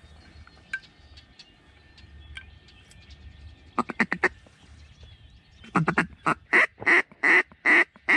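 Hand-blown mallard duck call: a quick run of four quacks about four seconds in, then from about six seconds a loud, steady string of hen-mallard quacks, about two or three a second, calling to an incoming duck.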